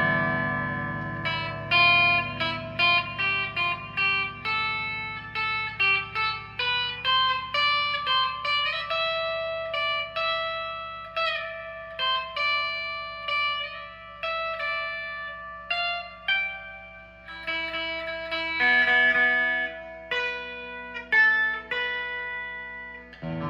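Electric guitar, a G&L Legacy Tribute played clean on its bridge Alnico 5 single-coil pickup: a line of single picked notes, one to three a second, with a bright, twangy tone.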